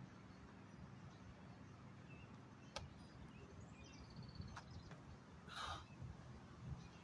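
Near silence with a faint bird call. There are a couple of sharp clicks, then a brief scuff about two-thirds of the way through as a person drops from a squat into the push-up position of a burpee on gravel.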